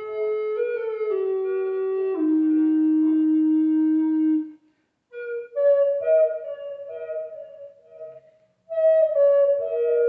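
Native American-style wooden flute playing a slow melody: long held low notes stepping down in pitch, a short break about halfway, then higher notes moving back and forth between two pitches, with another brief pause near the end.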